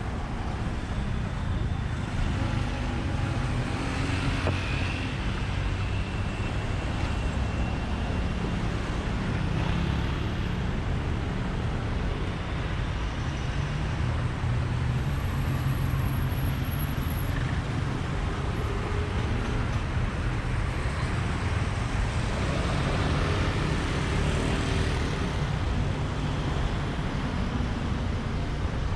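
Steady city road traffic noise: a constant low rumble of vehicles.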